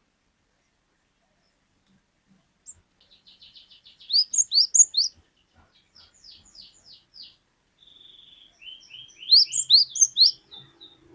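Cinereous tit (gelatik batu) singing: after a couple of seconds of quiet, a quick run of short high notes, then loud, repeated up-slurred whistled phrases in two bursts, with a looser series of notes between them.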